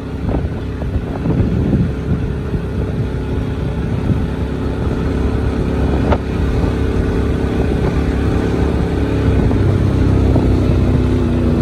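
Motorcycle engine running under way, with wind buffeting the microphone. There is a brief knock about six seconds in, and the engine note rises and gets louder near the end.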